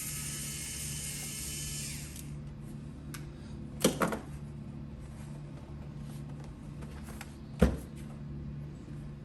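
Warrior compact cordless screwdriver, a small battery motor, whirring as it backs out a screw and stopping about two seconds in. Two sharp knocks follow, near the middle and near the end.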